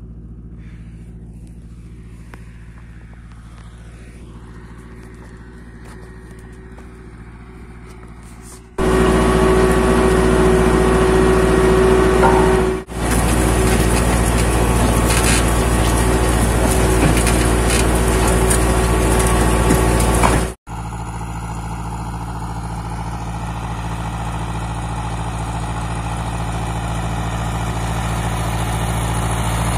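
Ursus C-360 tractor's four-cylinder diesel engine running steadily under load while pulling a plough. It jumps abruptly in level: moderate at first, loud and close for about twelve seconds from about nine seconds in, with a brief drop partway, then growing steadily louder near the end as the tractor approaches.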